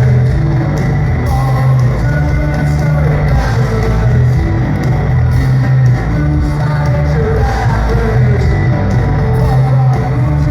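Post-punk rock band playing loud live music, with bass, drums, guitar and singing.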